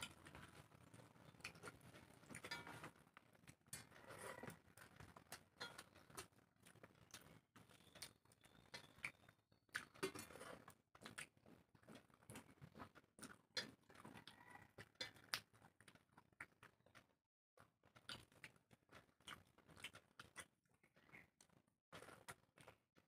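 Two people eating rice and chicken curry by hand off steel plates: faint chewing and mouth sounds with many scattered small clicks and smacks, close to the microphone.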